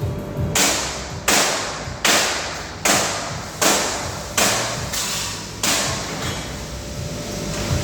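Heavy blows in a steady rhythm, about eight of them, roughly one every three-quarters of a second, each sharp at the start and then fading away.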